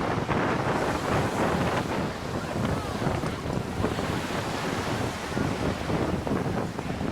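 Wind buffeting the microphone on a river cruise ship under way, a steady rushing noise mixed with the rush of water.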